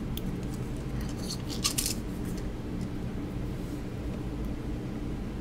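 A few light clicks and taps of small hand tools on a work surface, clustered about one and a half to two seconds in, over a steady low hum.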